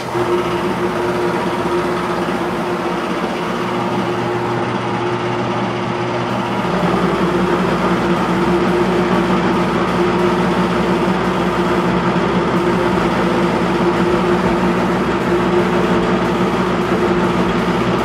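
Electric air compressor running with a steady mechanical hum over a hiss, switching on abruptly. A deeper low rumble joins about six and a half seconds in.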